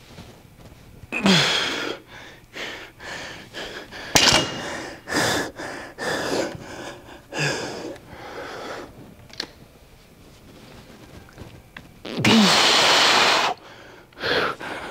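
A man breathing hard with forceful exhales and short grunts while lifting a heavy barbell; the longest, loudest exhale comes near the end. A sharp knock sounds about four seconds in.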